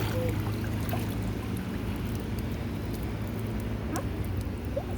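Pool water trickling over a steady low hum.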